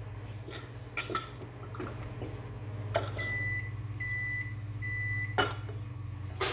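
Aluminium injection mold halves clicking and knocking as they are pried apart and set down on the bench, over a steady low hum. In the middle come three even electronic beeps, each about half a second long.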